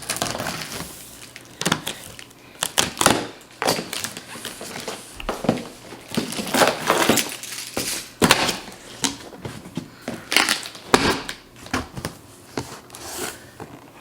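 Packaging being pulled open and handled: a string of irregular crinkling, crunching and scraping noises from cardboard and packing material.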